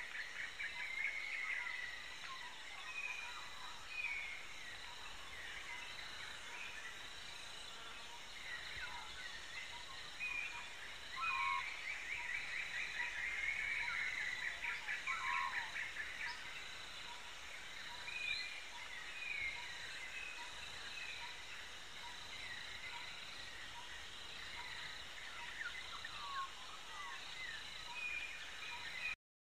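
Outdoor birdsong ambience: several birds chirping and whistling in short rising and falling phrases over a steady high-pitched background, cutting off suddenly near the end.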